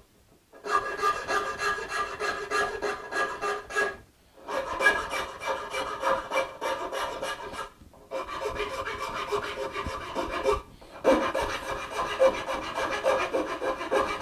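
Fine file stroking across the pins of a wooden dovetail joint, a steady run of rasping strokes in four runs with short pauses between them. The file is easing joints that have swelled too tight, taking off the saw marks.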